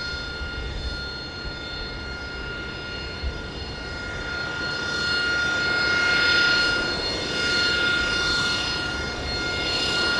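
AV-8B Harrier II's Rolls-Royce Pegasus turbofan running as the jet taxis: a steady high-pitched whine over a rushing jet noise that swells and eases a few times in the second half.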